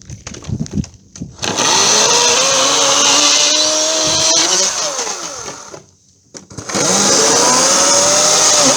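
EGO 56-volt 14-inch cordless electric chainsaw running twice, cutting old fence wood: each time the motor's whine climbs as the chain spins up, then winds down when the trigger is let go. A few knocks come before the first run.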